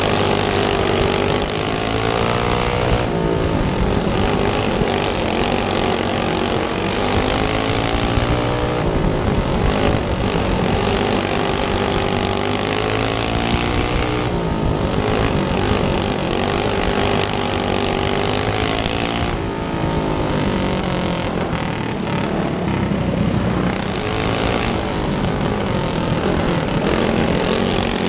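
Go kart's single-cylinder four-stroke clone engine running hard through laps of a dirt oval, its pitch dipping and climbing back every five to six seconds as it comes off and back on the throttle for each turn. Wind on the kart-mounted camera adds a constant rush.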